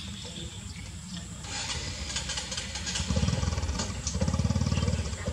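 An engine running with a fast, even low pulse, growing louder about three seconds in, with a light rattle over it.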